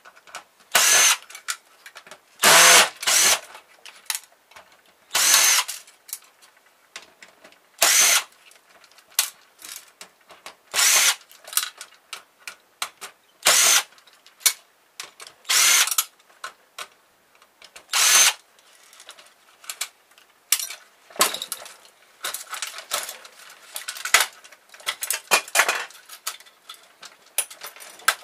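Cordless drill-driver running in short bursts of about half a second, one every two or three seconds, backing screws out of a printer's sheet-metal chassis. A quicker run of clicks and clatter follows in the last third.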